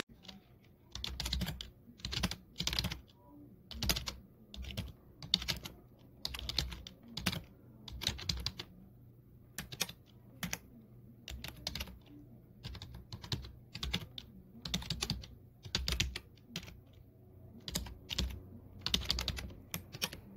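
Computer keyboard typing in short bursts of a few keystrokes, roughly one burst a second, with quiet gaps between.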